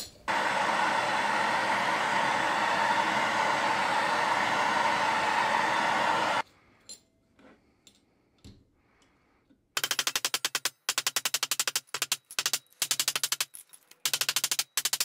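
A steady loud hiss for about the first six seconds, then a short quiet spell, then runs of very rapid sharp metal-on-metal blows: a hammer flattening the bowl of a silverware spoon on a steel bench block.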